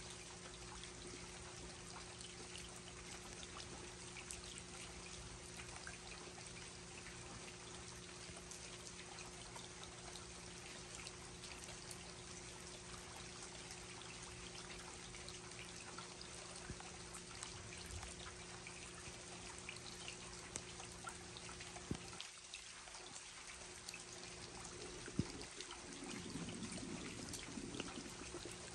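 Steady rain, with water pouring and trickling and many small drop ticks; a faint steady low hum runs underneath.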